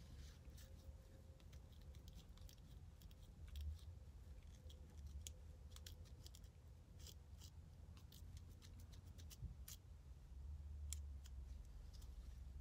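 Fine-toothed plastic edge comb scratching across the scalp between braids, scraping up dandruff flakes: a run of quick, faint, irregular scratchy strokes.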